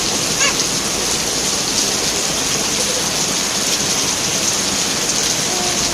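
Heavy rain falling steadily, an even, continuous wash of noise.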